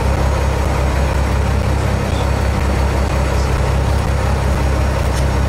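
Boat engine idling: a steady low drone under a constant hiss of wind and sea.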